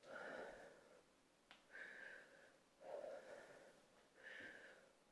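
Faint breathing of a woman exercising: four soft breaths, about one every second and a half.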